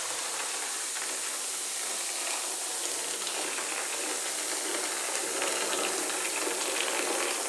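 Oxygen bleach granules fizzing and hissing steadily as hot water from a kettle pours onto them in a plastic basin, with the trickle of the pour under the fizz.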